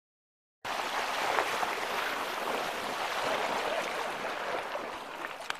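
Water rushing and splashing with rough, steady noise, typical of a mountain bike rolling through a shallow stream crossing on a stony riverbed. It cuts in abruptly about half a second in and eases slightly near the end.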